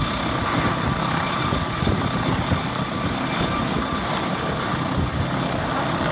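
Helicopter idling on the ground with its rotor turning: a steady turbine whine over a dense low rumble.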